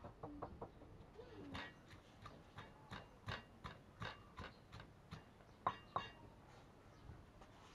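Wooden pestle pounding garlic and chilli into a paste in a stone mortar: a steady run of dull knocks, about three a second, with the last two strokes the loudest.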